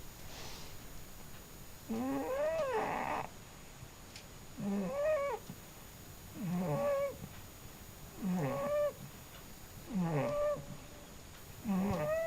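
A sleeping cat snoring, with a short pitched snore on each breath, about every two seconds, six in all. Each snore carries a wavering tone that rises and falls.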